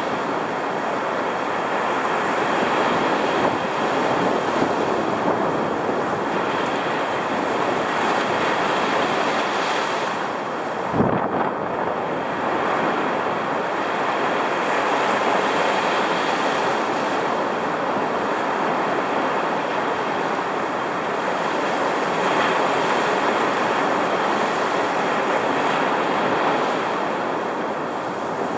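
Rough surf whipped up by a strong cold front, breaking continuously at the water's edge, with wind buffeting the microphone. A single brief low thump comes a little over a third of the way in.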